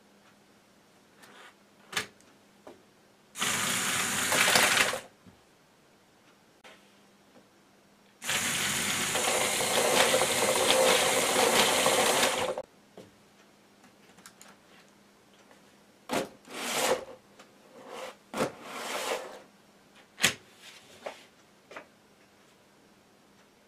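LEGO EV3 tank robot's electric motors, gearing and plastic tracks whirring as it is driven by remote control: one run of about a second and a half, a longer run of about four seconds, then several short jerky bursts with a few sharp clicks.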